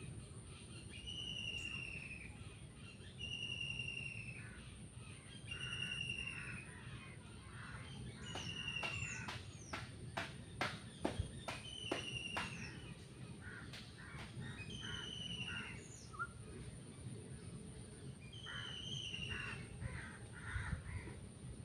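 A bird calling over and over, one short falling note every two to three seconds. A run of sharp clicks or taps comes in the middle and is the loudest thing, with a faint steady high whine underneath.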